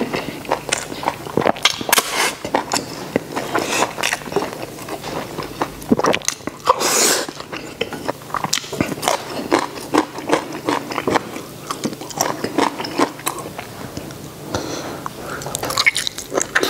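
Close-up wet chewing and lip-smacking of a person eating braised beef ribs and rice, with many irregular short smacks and clicks. Near the end the beef is gnawed off the rib bone.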